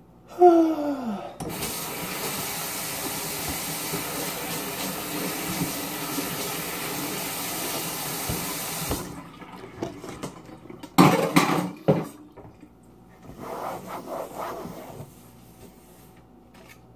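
Kitchen tap running water into a sink for about seven seconds, then shut off. Before it starts, a man groans once, falling in pitch. After it stops come a couple of loud short splashes or knocks.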